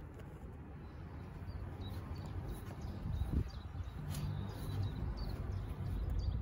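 Outdoor ambience: small birds chirping in quick short notes, starting about a second and a half in, over a steady low rumble of wind on the microphone.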